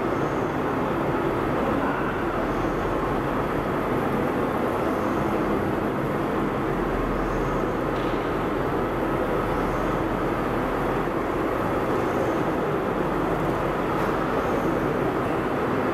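Biscuit production line machinery running: a steady, even mechanical drone, with a faint high chirp repeating about every two and a half seconds.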